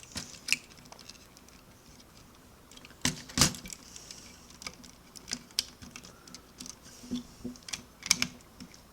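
Hard plastic Lego pieces clicking and rattling as a minifigure is fitted into a toy truck's opened cab. The clicks come scattered and irregular, the loudest a pair about three seconds in.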